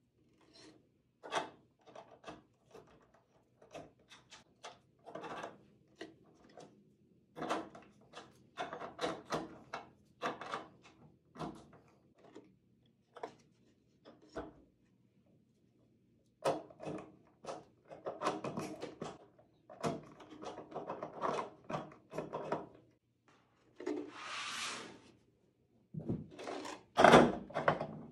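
A skateboard being handled and worked with a small hand tool: runs of small clicks and taps on the trucks and hardware, with gaps between them. Near the end the board is turned over and set down on its wheels with a few louder knocks.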